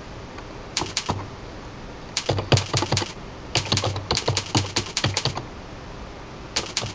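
Typing on a computer keyboard: four quick runs of keystrokes with short pauses between.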